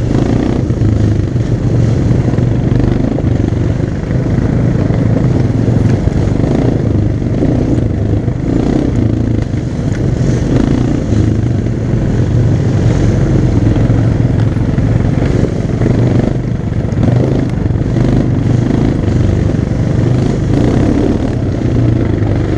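ATV engine running steadily at trail speed, heard close up from the rider's helmet.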